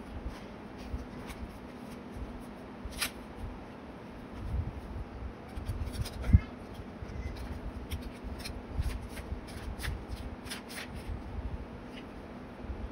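Hands handling paper and notebooks on a desk: paper rustling and sliding, with scattered light clicks and taps and one sharp thump a little past halfway.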